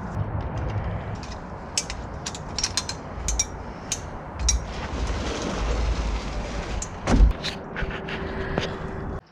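Pickup truck running, a steady low rumble with scattered rattles and clicks and one heavy thump about seven seconds in.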